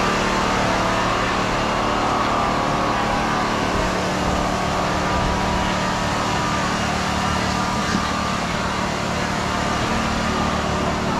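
A steady mechanical hum with several held tones, over the low chatter of a dense crowd.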